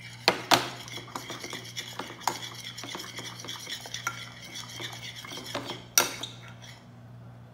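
A spoon stirring a glue-and-shaving-foam slime mixture in a glass dish: continuous scraping and stirring with sharp clinks of the spoon against the glass, the loudest just after the start and about six seconds in, easing off near the end.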